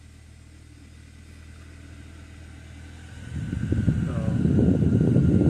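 Climate-control blower motor switching on after the fan-speed knob is turned up: from about three seconds in, air rushes out of the dash vent, quickly growing louder, with a faint whine from the blower above it.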